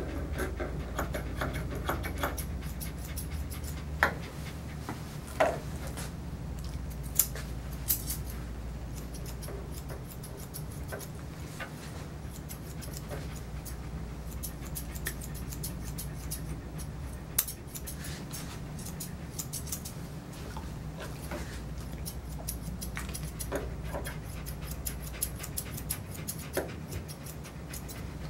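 Grooming shears snipping a dog's coat in short, irregular snips, with a few louder clicks now and then, over a low steady hum.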